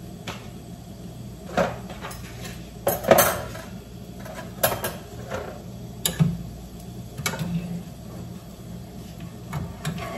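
A metal fork clinking and scraping against frying pans as scrambled eggs and toast are lifted out, in scattered sharp clinks with the loudest about three seconds in, over a steady low hum.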